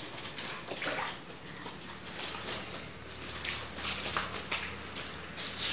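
Water running and splashing into a concrete fish tank, coming in uneven surges.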